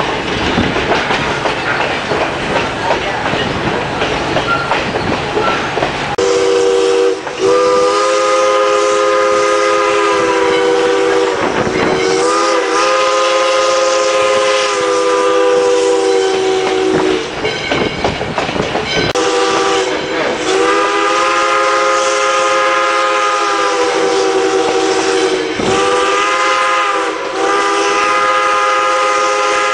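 Steam locomotive's multi-note chime whistle blowing a series of long blasts, with one short blast near the end, sounded as the train approaches a road crossing. Under it is the clickety-clack of the coaches rolling on the rails; the first six seconds hold only this rolling noise.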